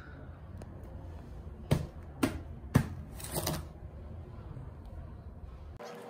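Three sharp knocks about half a second apart, then a short papery rustle, from stacks of paper charts being handled on a desk, over a low steady hum.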